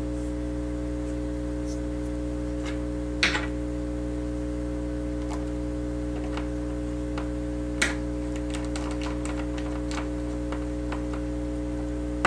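Aoyue 968 hot air rework station running at low airflow while heating up to about 399 °C, giving a steady hum. A few sharp clicks break in, with a quick run of ticks about eight seconds in.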